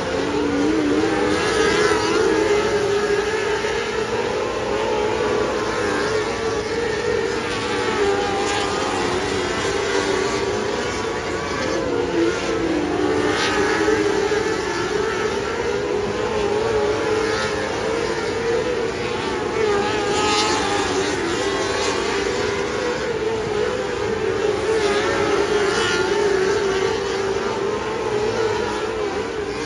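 A pack of 600cc micro sprint cars racing on a dirt oval, their motorcycle engines running at high revs, the pitch rising and falling as they go through the turns.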